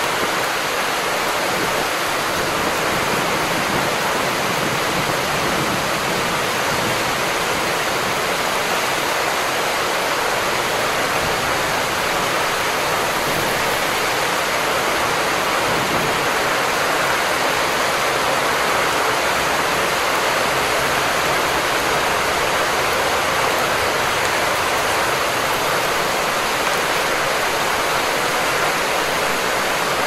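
Heavy rain pouring steadily, a dense, even hiss with no separate drops or other sounds standing out.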